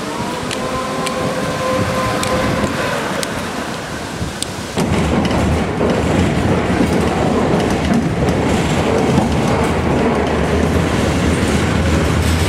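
Tatra T6B5SU tram running past close by: its traction motors whine in steady tones while its wheels click over the rail joints. About five seconds in, the sound cuts abruptly to a louder, steady rumble and rattle of tram running noise.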